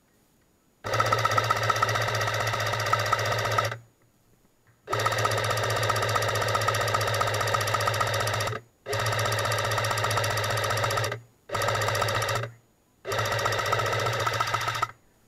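Airsoft PKP support gun firing on full auto in five long bursts, each a steady, very rapid rattle of shots lasting two to four seconds, the fourth one short, with brief pauses between.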